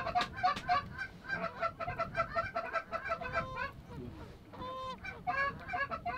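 Canada goose honking: a fast run of short honks and clucks, about five a second, for the first three seconds, then a few longer, drawn-out moans with a brief lull between them.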